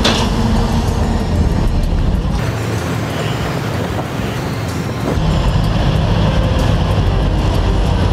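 Lifeboat engines droning steadily, heard inside the wheelhouse with water and hull noise. For about three seconds in the middle, the engine hum gives way to rushing wind and churning water.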